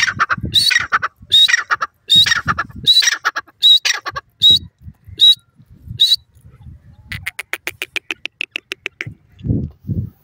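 Grey francolin calling: a run of harsh, repeated calls, each with a high rising note, about three calls every two seconds, followed by a fast rattling trill lasting about two seconds. Two dull low thumps come near the end.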